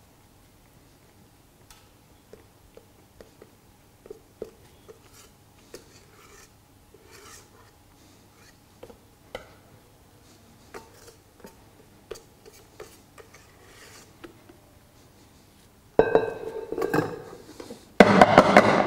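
Wire whisk clicking lightly against the rim of a fluted metal cake mould as thick cake batter is worked in it. Near the end come loud knocks as the filled mould is banged on the counter to settle the batter into the flutes.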